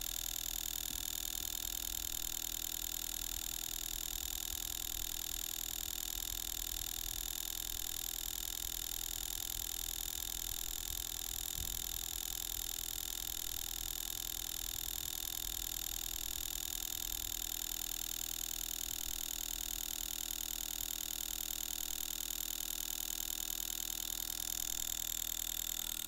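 Model Froment electromagnetic engine running steadily: a rapid, even ticking from its revolving armature and contacts, over a steady hum of several fixed tones.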